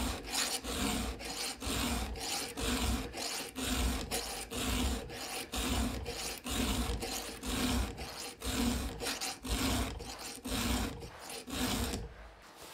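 Round chainsaw file rasping back and forth across the cutting teeth of a chainsaw chain, a steady run of about two strokes a second, sharpening the chain by hand. The filing stops near the end.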